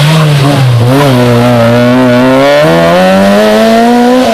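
Rally car engine running hard and loud, its pitch dropping briefly about a second in, then climbing steadily as the car accelerates. The sound cuts off abruptly at the end.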